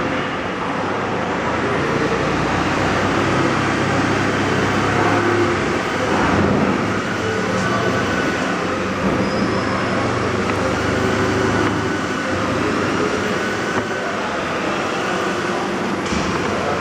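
FL-2030 CNC router running and cutting wood, a loud, steady machine noise with its tone shifting slightly every few seconds as the cutter moves.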